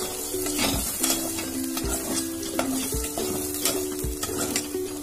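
Metal spoon stirring coconut masala paste and drumstick pieces frying in a stainless-steel pressure cooker, with sizzling and irregular knocks and scrapes of the spoon against the pot. A quiet background tune plays underneath.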